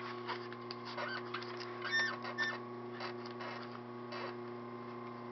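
Sewing machine stitching a line of thread through loop-side velcro: a steady motor hum with irregular light mechanical clicks, a few sharper clicks and short squeaks about two seconds in.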